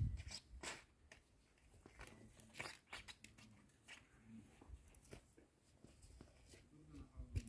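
Near silence, with scattered faint clicks and crackles and a brief low rumble at the very start.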